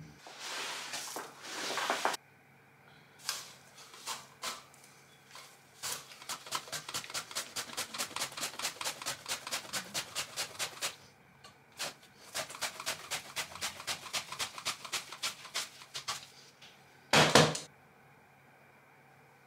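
Vegetable roast pushed back and forth across a stainless-steel mandoline slicer: a quick, even run of slicing strokes, about five or six a second, in two spells with a short break between. A brief loud clatter comes near the end.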